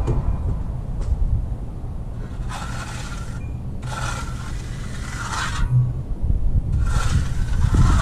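Steel trowel scraping across wet concrete in three strokes, each about a second long, as the surface is smoothed; a low rumble runs underneath.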